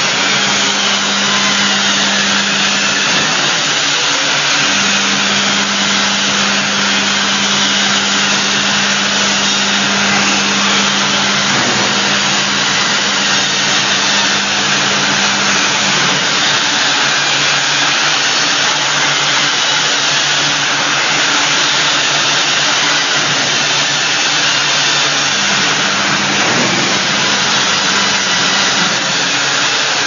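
Automatic glass bottle washing machine running: a loud, steady mechanical noise with a low hum underneath that fades out for a while and comes back.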